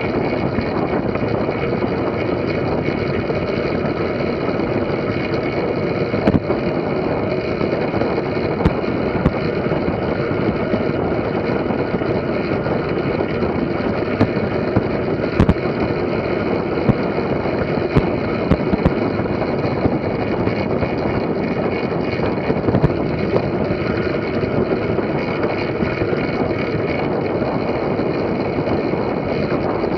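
Steady rush of tyres rolling and wind at speed from fixed-gear track bikes riding in a line around a banked velodrome, heard from a camera riding along, with a few short sharp ticks.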